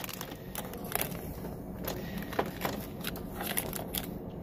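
Packs of Reese's peanut butter cups being pushed by hand into a snack vending machine's spiral coil, with irregular small clicks and wrapper crinkles.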